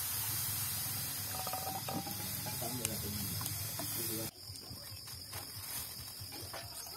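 Steady hiss from guava purée cooking in a pan over a wood fire, with faint clucks. About four seconds in, the sound cuts to a quieter stretch of scattered clicks and crackles.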